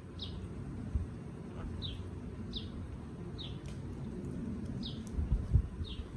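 A bird giving short, high, downward chirps over and over, about one a second, over a low rumble. Dull low thumps come about a second in and again near the end, the last ones the loudest.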